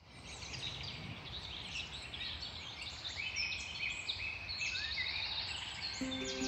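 Many songbirds chirping and trilling at once, a dense forest bird ambience over a low steady background rumble. Music with held notes comes in near the end.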